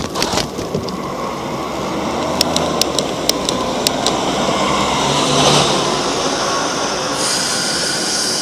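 Bicycle rolling at about 25 km/h, its kevlar wheels making a steady whirring drone. A run of sharp ticks comes a few seconds in, and there is a brief swell about halfway through.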